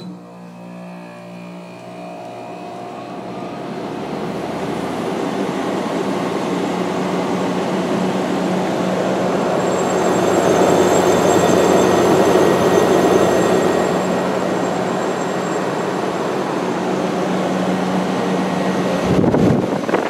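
2013 Frigidaire 12,000 BTU window air conditioner starting up and running. A steady low hum comes on at once, and the fan's rush of air builds over the first several seconds, then holds steady. There is a brief knock near the end.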